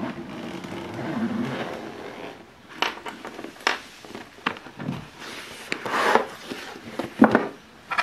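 Handling noise as a zip-up typewriter carry case is opened: rustling of the case material, then a few sharp clicks and knocks spread over the following seconds.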